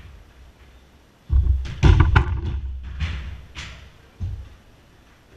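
A football being kicked and slamming against the clear walls of a jorkyball cage: a quick run of hard, echoing thuds from about a second and a half in, then a few lighter knocks.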